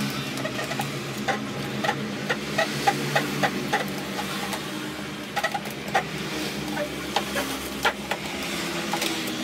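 Vinyl sticker film crackling and crinkling as it is handled and stretched, with irregular sharp ticks over a steady low hum.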